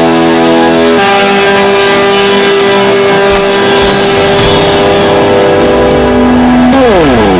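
Music led by an electric guitar holding a long sustained chord, with a quick downward pitch slide near the end.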